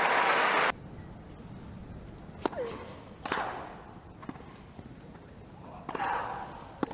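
Crowd applause that cuts off abruptly under a second in, then a tennis rally on a grass court: sharp racket-on-ball hits about a second or more apart, several with a player's grunt as she strikes.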